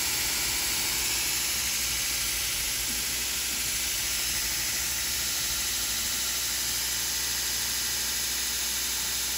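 2x72 belt grinder running free at full speed with nothing on the belt: a steady hiss from the abrasive belt over its wheels, with the electric motor's low hum beneath.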